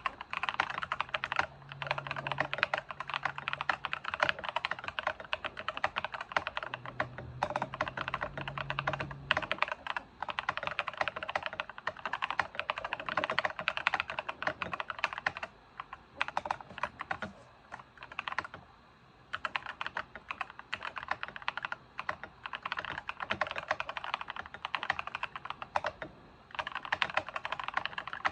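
Fast, continuous typing on a foam- and tape-modded Akko 5087S mechanical keyboard with Akko V3 Cream Yellow linear switches, a dense run of key clicks broken by a few short pauses.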